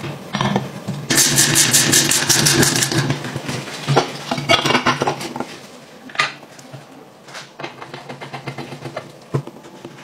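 A screw being driven into a pocket-bike engine's clutch cover with a hand tool, a quick run of regular clicks about a second in, followed by scattered clinks and taps of tool and metal engine parts being handled.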